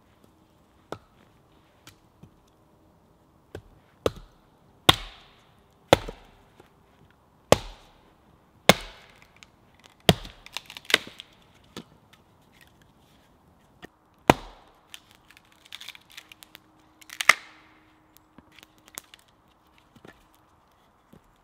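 Hultafors axe chopping and splitting firewood: about ten sharp, irregularly spaced blows into wood, with quiet gaps between them.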